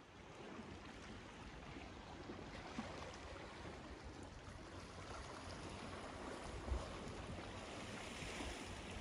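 Steady rushing outdoor background noise that grows slightly louder, with a single low thump about seven seconds in.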